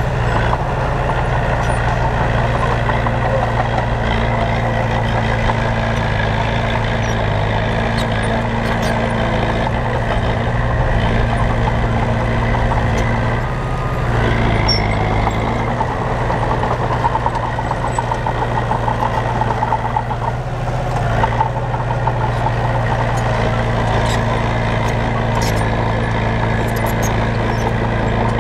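Heavy diesel engine of a road-building machine, a bulldozer or truck, running steadily under load, with a brief dip and rise in engine speed about halfway through.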